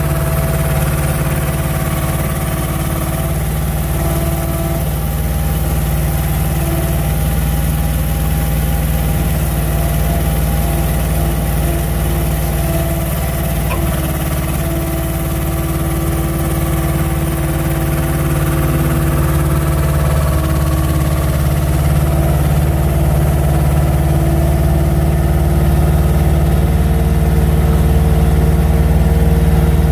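Truck engine running steadily to drive the hydraulics of a truck-mounted loader crane working a slab grab: a continuous drone with several held tones, slightly louder over the last several seconds.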